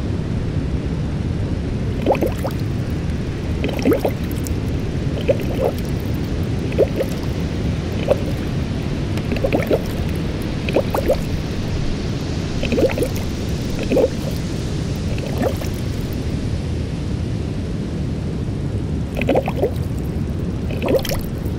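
Watery soundscape: a steady low rush with short drips and bubbling blips every second or two.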